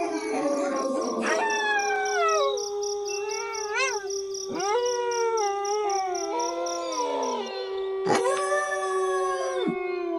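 A pack of wolves howling in chorus, several voices overlapping. One long howl holds a steady pitch throughout while others slide down in pitch, and a short rising-and-falling call comes about four seconds in. Insects chirp in a steady high pulsing rhythm behind them.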